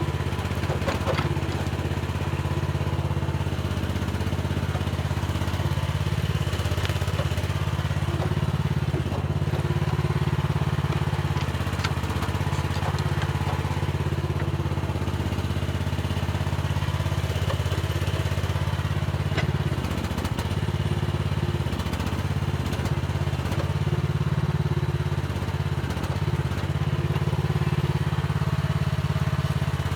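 Mini excavator's diesel engine running steadily under working load, its note swelling and easing every few seconds as the hydraulics work, with a few short knocks.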